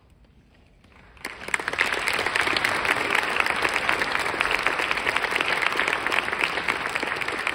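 A moment of near silence after the choir's final note, then the audience bursts into applause about a second in, a dense, even clapping that carries on steadily.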